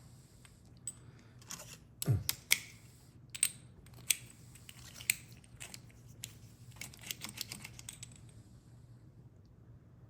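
Small metal clicks and taps from Ford door lock cylinder parts being handled: a few sharp clicks and one heavier knock between about two and five seconds in, then a run of lighter ticks that stops about eight seconds in.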